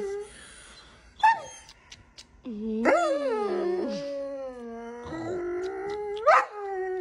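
Doberman howling and yelping in protest: long, drawn-out, wavering calls with sharp yelps that jump up in pitch, three of them in all, the sound of the dog getting mad at being pretend-eaten.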